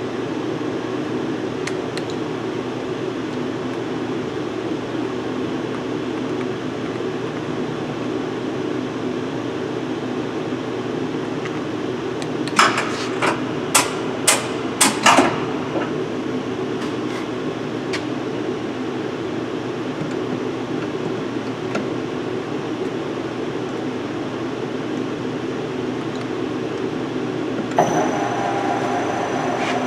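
Clausing CKE6140Z CNC lathe running with a steady hum. About midway comes a quick cluster of about seven sharp metallic clanks, and near the end a new, higher whine starts suddenly and holds.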